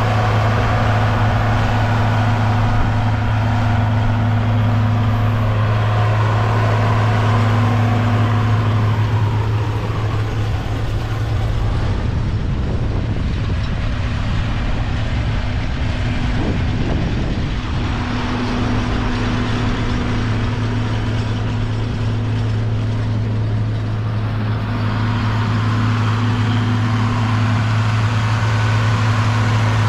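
John Deere 4230 tractor's six-cylinder diesel engine running steadily at working speed while pulling a John Deere 467 round baler: a constant low drone that turns rougher for a few seconds midway.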